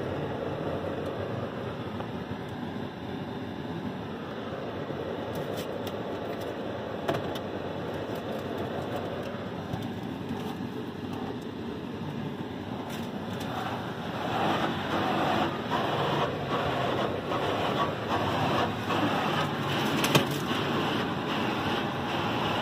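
Automatic tunnel car wash heard from inside the car: a steady rush of water spray over the body and glass. About two-thirds of the way through it grows louder and choppier as the spinning cloth brushes slap against the doors and windows, with one sharp knock near the end.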